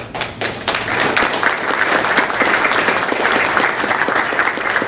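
Audience applauding, many hands clapping at once, building up within the first second and then holding steady.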